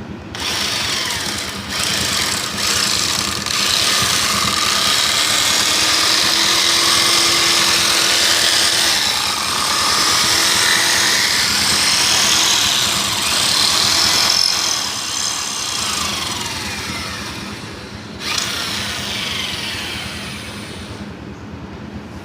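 Electric drill spinning a square wooden stick that scrapes loudly as it is shaved round into a dowel, in a few short goes at first and then one long continuous run. The noise jumps again near the end before fading away.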